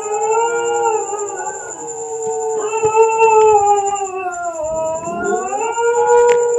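Dog howling in long drawn-out howls, a second howl starting about two and a half seconds in, dipping in pitch and then rising again before holding steady.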